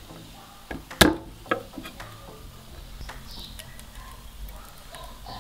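A chef's knife is pressed and slapped flat onto garlic cloves on a wooden cutting board to crush them: a loud knock about a second in and a lighter one half a second later. After that come faint crackling ticks from a wood fire.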